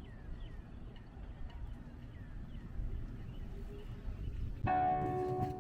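Low outdoor background with faint high chirps, then background music with sustained chords starts near the end.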